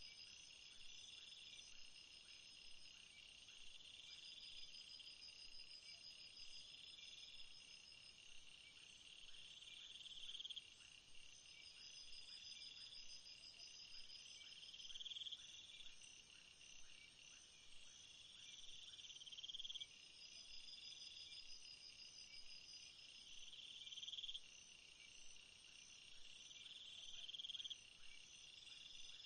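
Late-night jungle ambience: a faint, steady chorus of crickets and other insects. One buzzing call swells and cuts off sharply about every four to five seconds, and a pulsed trill comes and goes in bouts above it.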